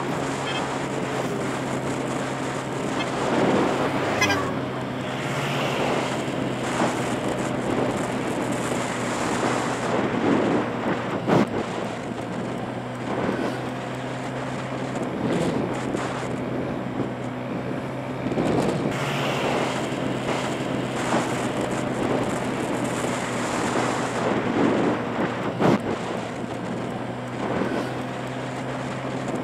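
Motorbike riding at a steady cruising speed: the engine runs with an even, unchanging hum under road and rushing-air noise. Two brief sharp knocks stand out, one about a third of the way in and one near the end.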